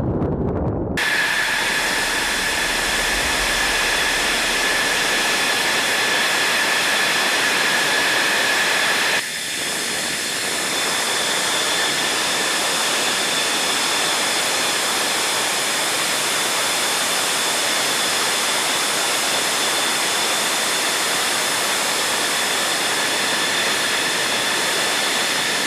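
Fighter jet engine running steadily: a constant rushing noise with a high turbine whine. There is a short break about nine seconds in, then the same sound carries on.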